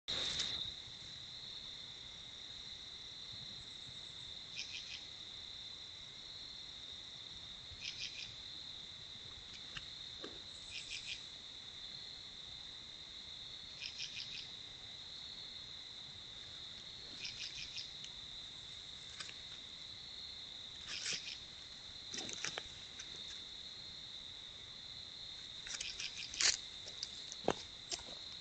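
Night insects: a steady high-pitched cricket trill, with short raspy pulse groups repeating every few seconds. A few faint rustles or knocks come near the end.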